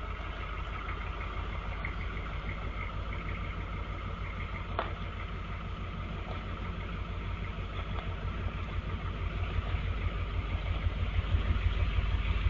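Pickup truck engine running with a low, even throb as the truck creeps up the driveway, getting louder near the end as it comes closer. A single short click about five seconds in.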